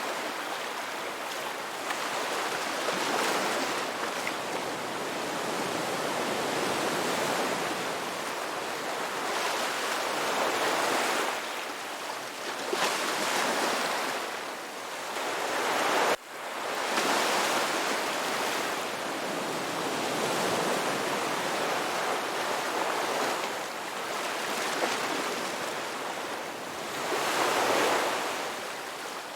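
Ocean surf: waves breaking and washing in, a continuous rush that swells and eases every few seconds. About sixteen seconds in the sound drops out for an instant and comes straight back, like a splice in the recording.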